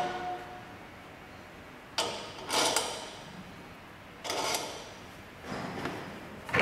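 Metal parts of a wheel balancer's motorcycle adapter being handled on the balancer shaft: a ringing tone fading out at the start, then several short metallic scrapes and clanks a second or two apart as the fittings are worked onto the shaft.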